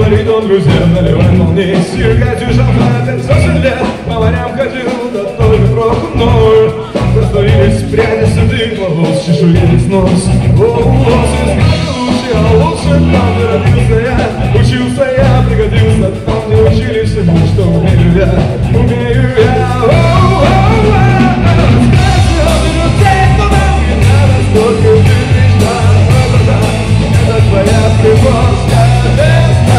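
Live rock band playing loudly through small PA speakers: electric guitars over a drum kit, with a steady beat.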